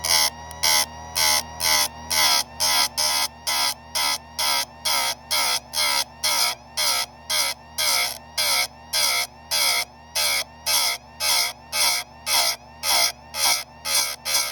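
Chicago Electric bench chainsaw-chain grinder's motor running while its grinding wheel is bumped against a cutter tooth about twice a second, each contact a short burst of grinding. The wheel is being used to restore the angle of a worn, squared-off cutter.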